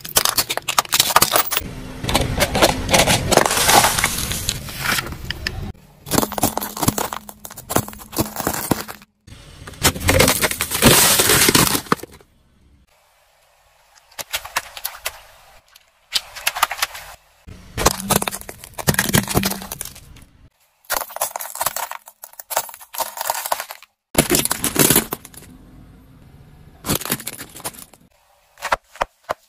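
A car tyre rolling over and crushing objects in a run of short separate clips: hard plastic cracking, snapping and crunching under the wheel, each burst cut off abruptly by a moment of silence.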